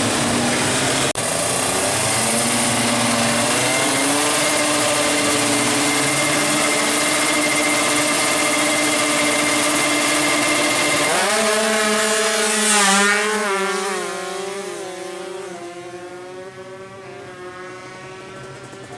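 Two-stroke 155cc drag-bike engine held at high revs with a steady pitch for about eleven seconds. Its pitch then wavers and it peaks loudly for a moment. After that it fades away, its pitch still wavering.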